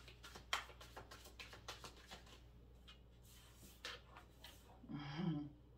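Tarot cards shuffled by hand: a quick run of soft card clicks and snaps, thinning out, then a few cards set down on a table. A short hummed 'mm' from a person's voice about five seconds in.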